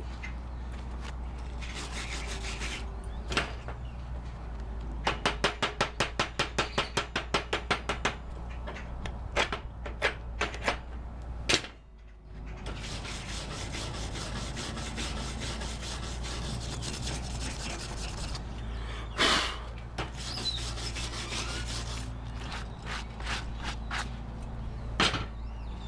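Hand wire brush scrubbing slag off a flux-core weld bead on steel plate. Long stretches of steady scratchy brushing, with a run of about fifteen quick, even strokes about five seconds in and a few separate strokes near the end.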